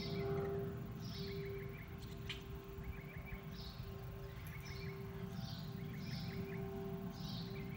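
A songbird repeating a short call about once a second, a high falling note followed by a quick run of chips. Under it, a steady low tone breaks on and off, over a low rumble of outdoor background noise.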